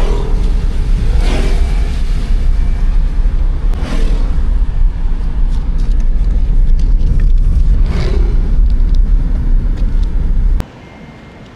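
Steady, loud low rumble of a car on the move, with a few faint passing sounds over it. It cuts off abruptly near the end.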